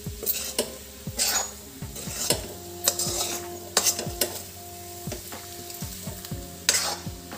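A spatula scraping and knocking irregularly against a kadhai as spiced potato-and-pea samosa filling is stirred and fried, with a steady sizzle underneath.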